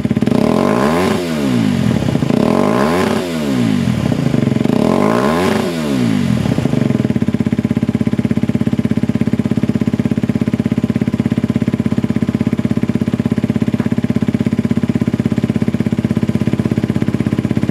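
Derbi GPR 125's single-cylinder four-stroke engine revved three times through a Giannelli exhaust with the silencer removed, each rev rising and falling back, then settling into a steady, loud idle for the rest of the time.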